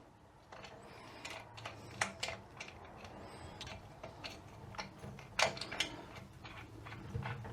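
Scattered, irregular clicks and light metallic clinks of a hand ratchet and tools working the bolts out of a 42RE transmission's front pump.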